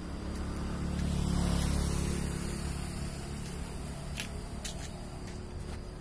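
A motor vehicle passing by, its low engine hum and noise growing louder to a peak about a second and a half in, then slowly fading. A few sharp clicks come near the end.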